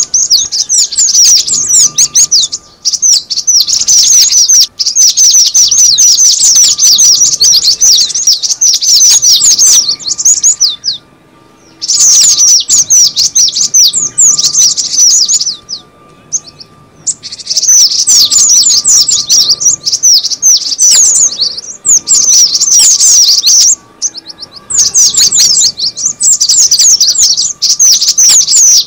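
Cinereous tit (gelatik batu) calling from a lure-call recording: rapid, very high chirps packed into dense runs, broken by a few short pauses, the longest about 11 and 16 seconds in.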